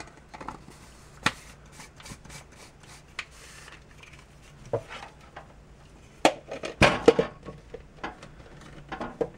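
Plastic clicks and knocks as the blade base of a personal blender is screwed onto its cup and the cup is handled, with a cluster of louder knocks about six to seven seconds in.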